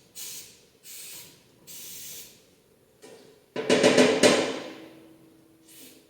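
Four short hissing puffs of blown air, then a loud clatter of rapid knocks with a brief ringing tone after it, typical of a small metal part being knocked against something hard.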